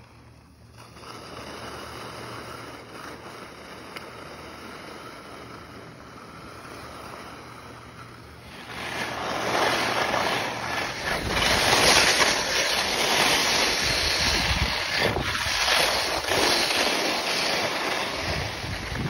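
Skis scraping over firm groomed snow, with wind rushing across the microphone of a phone carried by a moving skier. Moderate for the first eight seconds or so, then much louder and rougher.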